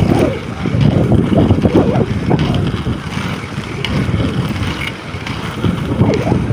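Wind buffeting the microphone of a camera moving at skating speed, mixed with the rumble of inline skate wheels rolling on an asphalt road, in uneven gusty surges.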